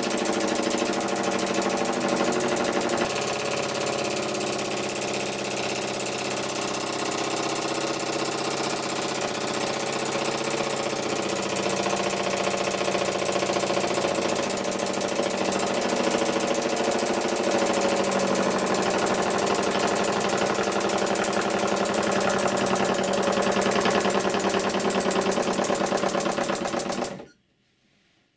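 Homemade oscillating engine running fast and steady on compressed air while driving a small electricity generator, a rapid even mechanical chatter with air exhaust. It cuts off suddenly near the end.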